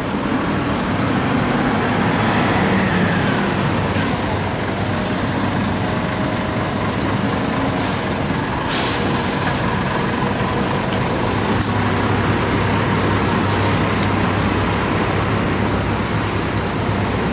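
A Keihan Bus airport limousine coach's diesel engine running close by amid city traffic, with a falling pitch early on as it slows. Several short, sharp hisses of released air come from its air brakes as it stands at the stop.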